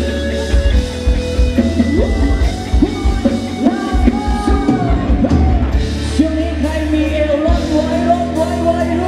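Live band playing loud amplified music through a PA, with a heavy bass beat and a singer's voice over it.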